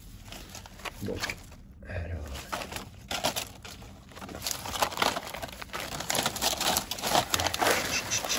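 Fibrous Trachycarpus palm stem and leaf bases being pulled and broken apart by a gloved hand: a dense run of crackles and snaps that thickens about three seconds in.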